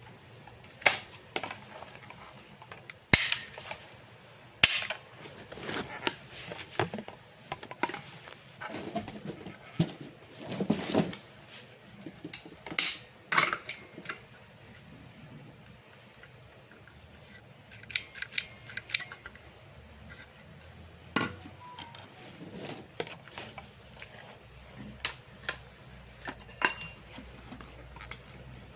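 Sharp metallic clicks and clacks of an ATA 12-bore over-and-under shotgun being handled, its mechanism worked by hand. The two loudest clicks come about three and four and a half seconds in, and lighter clicks and knocks follow irregularly.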